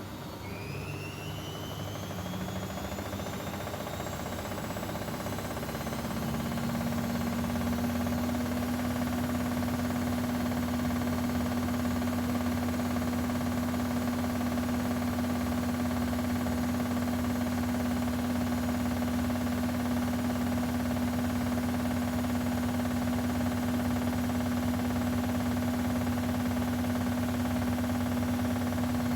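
Bosch Maxx washing machine's motor speeding the drum up, with a whine rising in pitch and the sound growing louder over the first six seconds or so. It then holds a steady spin with an even hum.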